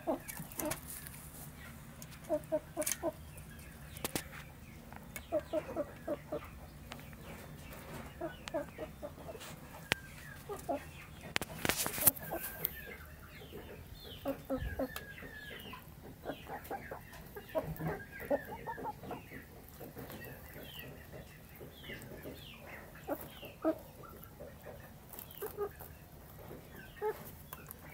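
A rooster and hens clucking softly in short clusters of three or four notes while they peck food from a metal bowl, with scattered pecking clicks and one sharp knock about twelve seconds in.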